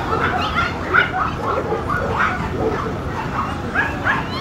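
Dogs barking and yipping over and over, about three short barks a second, with no real pause.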